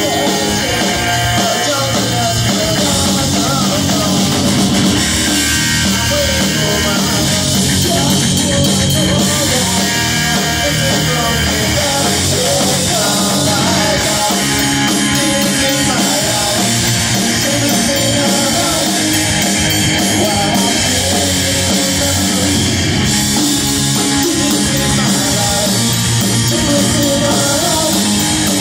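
Live rock band playing loud and without a break: electric guitar, bass guitar and drum kit.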